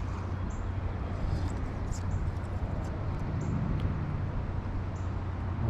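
Steady outdoor ambience of a shallow creek: an even rushing hiss of water over a constant low hum, with a few faint clicks.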